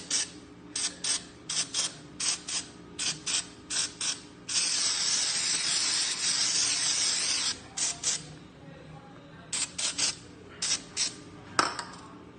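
Short hissing sprays, mostly in quick pairs, then one long spray of about three seconds, then more short sprays: cleaning the wheel hub with a spray after the brake disc has been removed. A sharp clink near the end.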